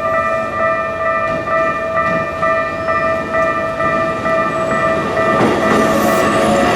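Japanese railway level-crossing alarm ringing in an even, repeating ding-ding. A train rumbles through the crossing from about five and a half seconds in.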